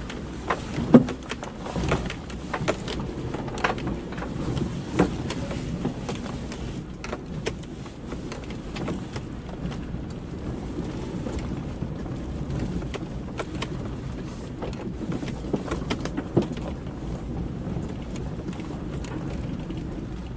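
A vehicle driving slowly over a rough forest dirt track: a steady low rumble of engine and tyres, with irregular knocks and rattles as it jolts over the uneven ground, the sharpest about a second in.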